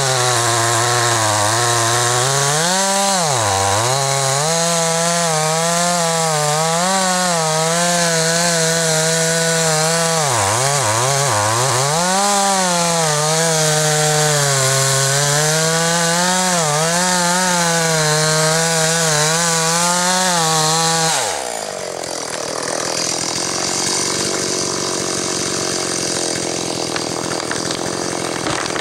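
Chainsaw cutting into a large tree trunk during felling, its engine note repeatedly sagging and recovering as the chain bogs down in the wood. About three-quarters of the way through, the engine note drops sharply and the cutting stops, leaving a quieter steady noise.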